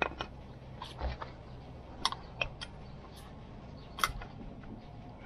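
Brake pad and its metal clips clicking and knocking against a new cast brake caliper as the pad is pressed into place by hand: a scatter of short, sharp clicks, the sharpest about four seconds in.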